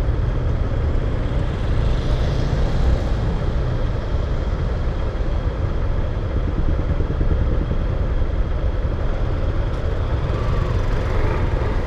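Motorcycle engine idling, stopped in a traffic jam, with the steady low noise of the surrounding traffic.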